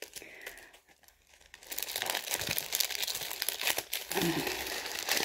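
Paper leaflet and packaging crinkling and rustling as hands pull and fold at it, working to get a pack of self-adhesive rhinestone sheets open. The crinkling grows loud and dense about two seconds in and keeps on.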